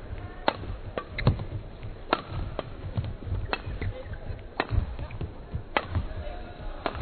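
Badminton rally: rackets strike the shuttlecock in sharp cracks about once a second, over the dull thud of players' feet on the court.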